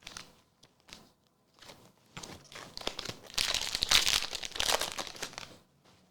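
Foil Pokémon booster-pack wrapper crinkling as it is handled and torn open, loudest from about two seconds in until near the end, after a few light taps and clicks.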